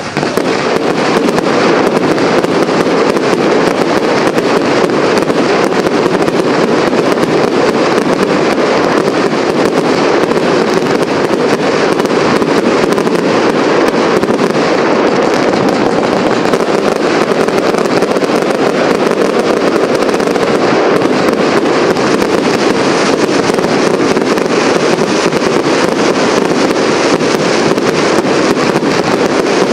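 Professional fireworks display: aerial shells and effects going off in a loud, dense, unbroken barrage of bangs and crackles with no pauses.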